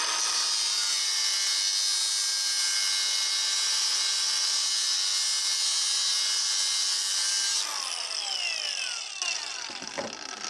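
Milwaukee cordless angle grinder with a cut-off disc running at speed, cutting relief grooves across the threads of a steel wheel stud held in a vise. About seven and a half seconds in it is released and spins down, its whine falling in pitch and fading.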